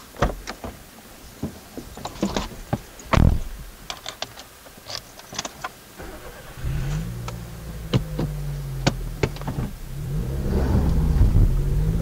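A car door being opened and handled, with a string of clicks and knocks and a loud door slam about three seconds in, then a small hatchback's engine starting about six seconds in and running steadily, growing louder near the end as the car pulls away.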